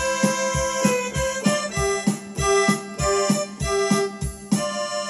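Electronic keyboard playing a tune on an accordion-like voice over a steady accompaniment beat with low thumps about three times a second, closing on a held chord near the end.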